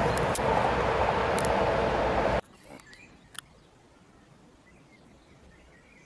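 Passenger train running on the tracks, a steady loud rolling noise of wheels on rail with a few sharp clicks, cut off abruptly about two and a half seconds in. After that comes quiet open-air ambience with faint bird chirps and a single click.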